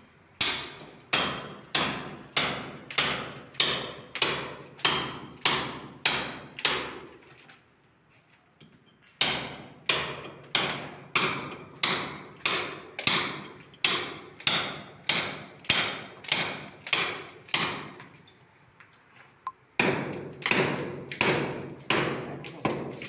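Hammer striking a steel chisel in steady blows, about one and a half a second, each with a short ringing tail, chiselling a channel into a plastered wall for electrical conduit. The blows stop twice for a second or two and then start again.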